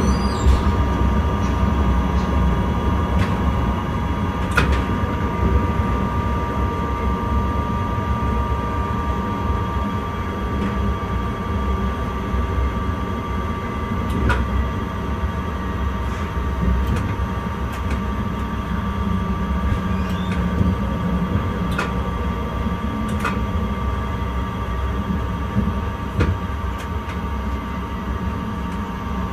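Passenger train running at speed, heard from inside the driver's cab: a steady low rumble with a steady whine, and occasional sharp clicks.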